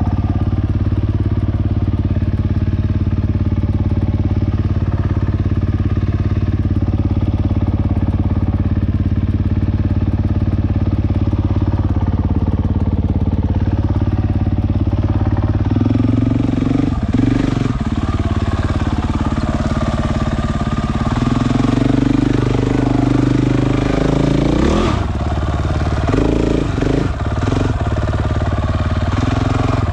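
Dirt bike engine idling steadily, then revved up and down in several sharp bursts from about halfway through as the bike climbs a rocky stair-step ledge under load.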